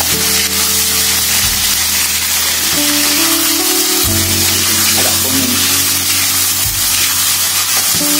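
Background music of slow, held notes over the steady sizzle of chicken pieces frying in oil in a wok.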